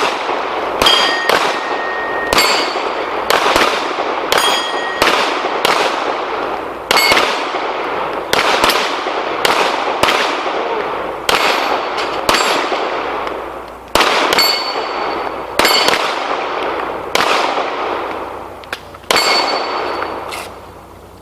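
A string of pistol shots, about one a second, from two shooters firing at steel plates, with many shots followed by the clear ring of a hit steel plate. The firing stops near the end.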